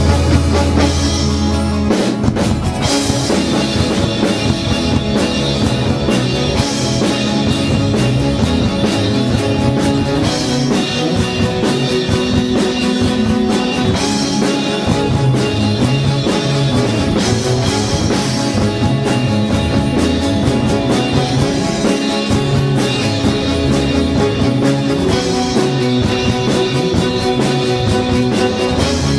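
Live band playing an instrumental rock passage on drum kit, electric bass, guitar and fiddle. A held low bass note opens it, and the full band comes in about three seconds in with a rhythmic bass line and drums.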